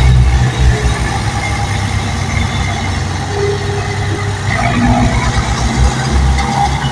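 Bulldozer's diesel engine running with a steady low rumble that pulses in strength, with faint brief high squeals over it.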